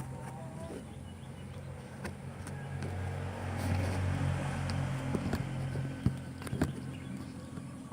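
Low engine rumble that swells around the middle and then fades, like a vehicle passing, with a few sharp clicks near the end.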